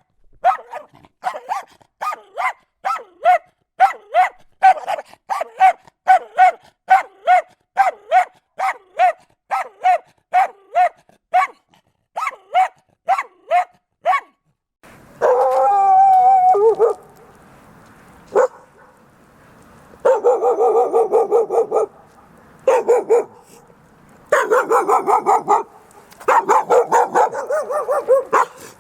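Dogs barking angrily. First comes a steady run of sharp, high-pitched barks, about two a second. About halfway through it changes to rapid flurries of barking in bursts of a second or two, over a background hiss.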